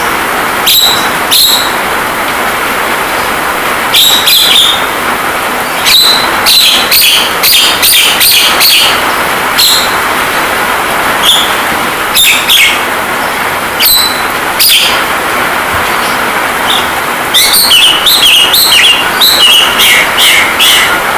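Javan myna (jalak kebo) calling: short, sharp chirps and whistles in clusters, busiest near the end, over a steady hiss of rain sound.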